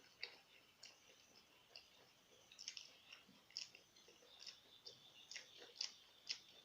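A person chewing food: faint, irregular mouth clicks and wet smacks, with a few sharper ones in the second half.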